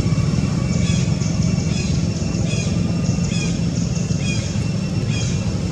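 Steady low engine hum, like a vehicle running, with a short high chirp repeating about once a second over it.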